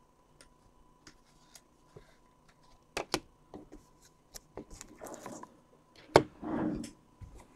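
Trading cards being handled on a table: scattered light clicks and taps with a faint rustle, two sharper clicks about three seconds in and a louder one just after six seconds, followed by a short breathy sound.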